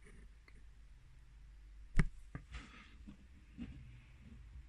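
A few small handling clicks and taps in a quiet small room, with one sharp click about two seconds in.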